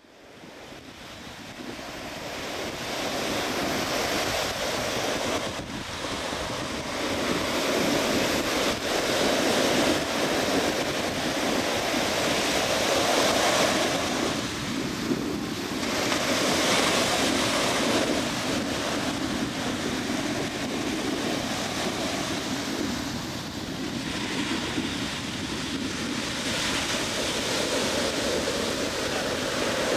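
Ocean surf breaking and washing up a beach, swelling and ebbing every few seconds, with some wind on the microphone. It fades in from near silence at the very start.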